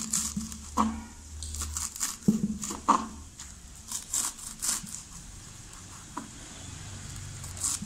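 Kitchen knife chopping fresh fenugreek (methi) leaves on a wooden cutting board: irregular crisp strokes as the blade cuts through the bunch and meets the board.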